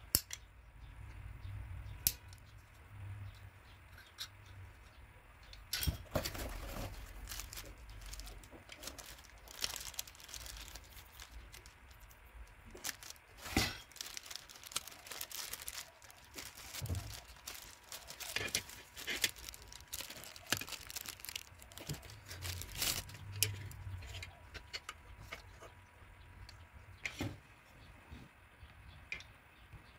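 Packaging being handled during an unboxing: a clear plastic bag crinkling and tearing, densest in the middle, mixed with scattered clicks and knocks of hard plastic phone-holder parts being turned over in the hands.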